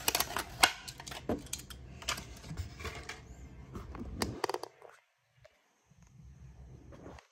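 Crackling and clicking of a plastic blister pack being handled and pulled open to free a die-cast toy car, with several sharper clicks among it. It stops after about four seconds, leaving only a faint hum, and a single sharp click comes at the very end.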